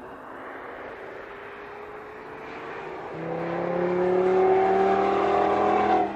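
Audi TT RS Roadster's turbocharged five-cylinder engine accelerating as the car drives past, its pitch rising steadily and getting much louder about halfway through, then breaking off sharply near the end.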